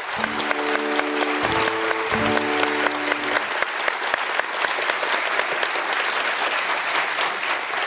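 Studio audience applauding, a dense steady patter of many hands. Over the first three seconds or so a few held musical chords sound, shifting pitch once or twice.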